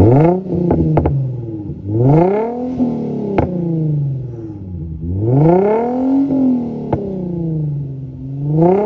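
Infiniti G35's 3.5-litre V6 revved from idle through a modified dual exhaust with a new resonator and Y-pipe: about four revs, each climbing quickly and then falling away slowly. There are a few sharp pops as the revs drop.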